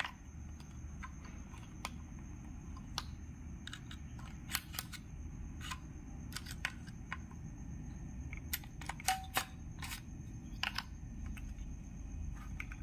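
Irregular sharp plastic clicks and scrapes as the arc chutes of a moulded case circuit breaker are pried out with a screwdriver and fingers, over a low steady hum.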